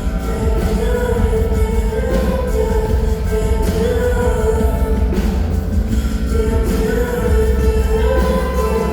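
Live concert music heard from the audience: a woman singing over keyboards with a deep, steady bass.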